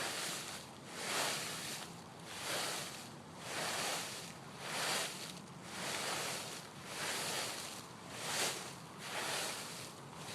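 Dry fallen leaves swishing in a steady rhythm, about one swish a second, each stroke a loud rustling hiss; the swishing stops suddenly at the end.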